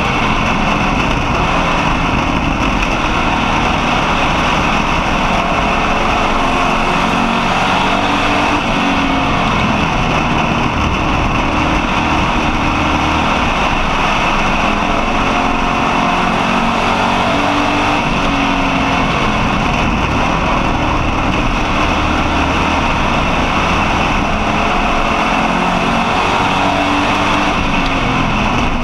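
Street stock race car's engine at racing speed, heard from inside the car: loud and continuous, its pitch rising and falling with the throttle as it laps.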